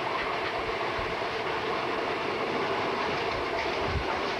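Passenger train in motion, heard from inside a coach by an open window: the steady running noise of the wheels on the rails.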